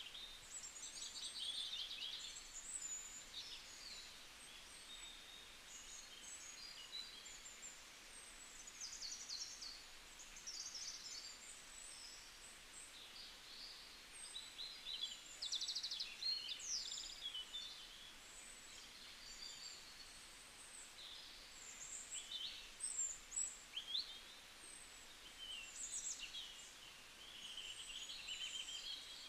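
Birds chirping: many short, high calls and quick trills, several overlapping, over a faint steady background.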